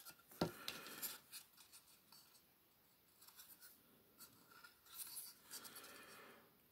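Faint handling of a small plastic toy barrier in the fingers: a sharp click about half a second in, a few lighter clicks and taps, then soft rubbing and scratching of fingers on the plastic near the end.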